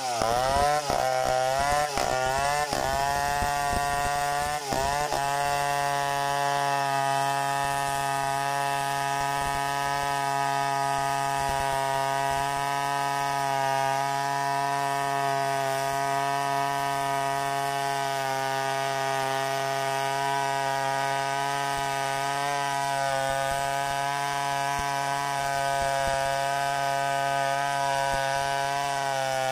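Stihl 070 two-stroke chainsaw ripping lengthwise through a gmelina log in freehand milling, the engine running under load. Its pitch dips and recovers several times in the first few seconds, then holds steady through the long cut.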